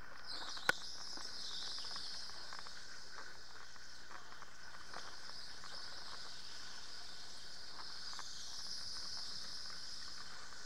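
Electric go-kart running at speed: a steady high-pitched motor whine over a hiss, swelling and easing as the kart goes through the corners. A single sharp click comes about a second in.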